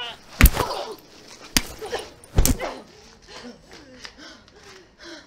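Two women fighting: three sharp, loud hits or body impacts within the first two and a half seconds, with grunts and cries of effort and pain around them, then short strained breaths and whimpers.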